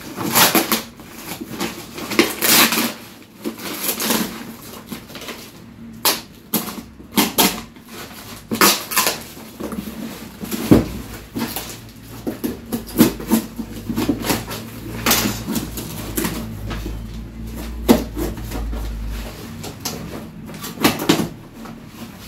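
Cardboard box being opened by hand: packing tape ripped and brown paper wrapping torn and crumpled, with cardboard flaps rustling, in an irregular run of rips and rustles. A low hum sits underneath through the middle stretch.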